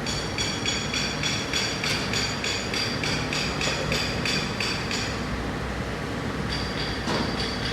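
Rapid, even metallic clicking with a ringing note, about four clicks a second. It comes from hand-tool work on the engine's timing-chain parts. It runs for about five seconds, stops, and starts again near the end over a low steady hum.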